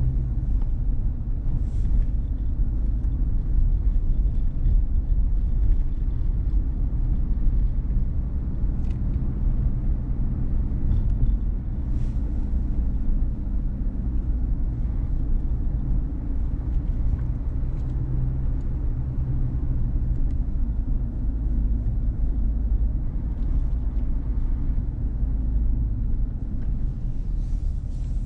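A car being driven: a steady low rumble of engine and tyre noise, with a few faint clicks.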